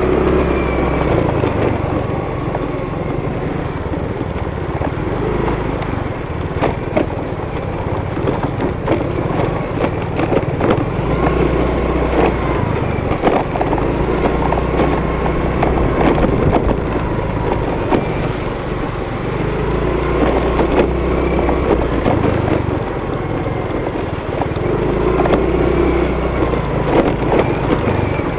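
Motorcycle engine running while riding over a rough, wet, potholed dirt road. The pitch rises and falls with the throttle, and frequent knocks and rattles come from the bumps.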